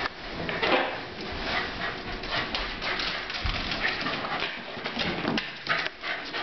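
A Pembroke Welsh corgi scrambling after balloons on a tile floor: irregular clicks and scuffs of claws and paws, mixed with balloons being knocked and rubbed about.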